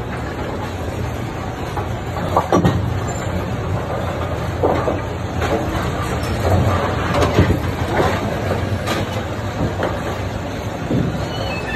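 A row of Brunswick A2 pinsetters running: a steady low mechanical hum with irregular clanks and knocks from the machinery every second or so.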